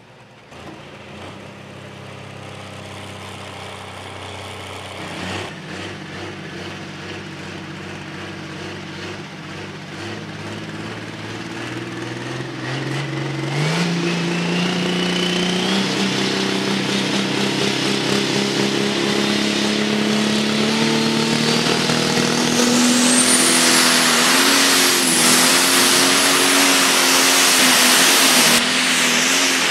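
Light pro stock pulling tractor's turbocharged diesel engine under full load on a pull, getting steadily louder as the revs climb. A high turbocharger whine rises steadily in pitch through the second half.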